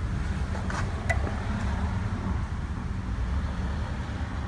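A motor vehicle engine running steadily with a low rumble, plus a couple of light clicks.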